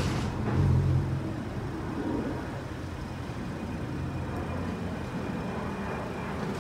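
Chevrolet Camaro's 3.6-litre V6 idling steadily, a little louder in the first second.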